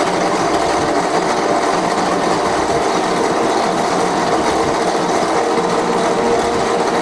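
Horizontal metal-cutting bandsaw running steadily through a splined steel semi-truck brake shaft, with coolant flowing over the cut.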